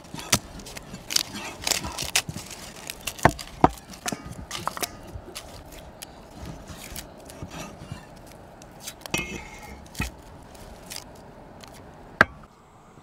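Knife cutting pork on a cutting board: irregular sharp knocks of the blade against the board, the loudest about three seconds in and near the end.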